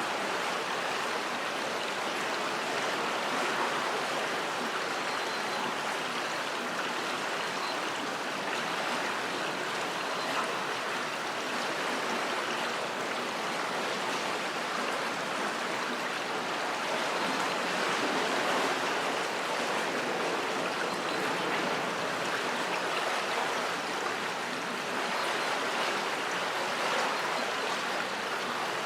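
River water flowing under a bridge, a steady rushing with no change in level.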